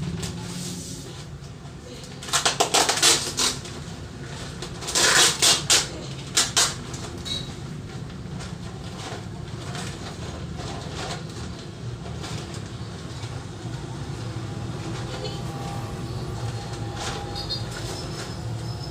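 Woven plastic cement sacks being handled, rustling and flapping in several short loud bursts in the first seven seconds, over a steady low hum.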